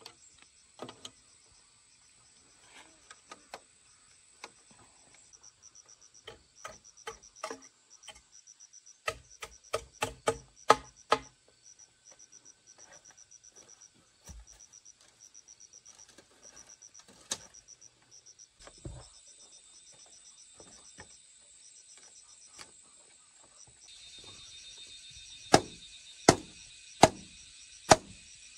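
Crickets chirping steadily in the background while tools strike bamboo in sharp, scattered knocks, bunched together about a third of the way in; near the end comes a regular run of chopping strikes a little under a second apart.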